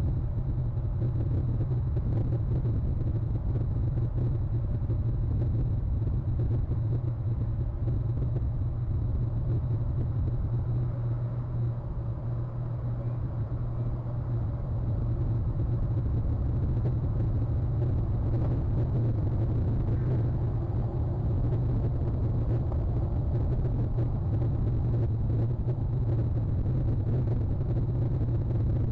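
Steady low rumble of outdoor background noise with a faint high-pitched whine, unchanging throughout; no clear bird call stands out.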